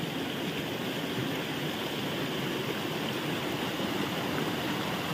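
Shallow stream running over rocks and gravel, a steady rushing of water.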